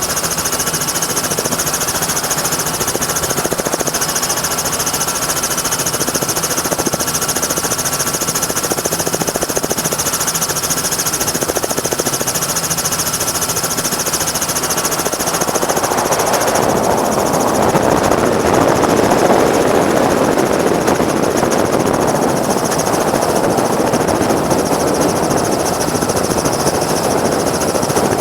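Helicopter rotor and turbine running as heard on board: a rapid, even chopping with a steady whine. Just past halfway the whine drops away and a louder rushing noise swells in.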